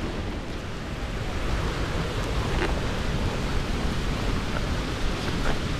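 A steady rushing noise, heaviest in the low end, with a few faint clicks.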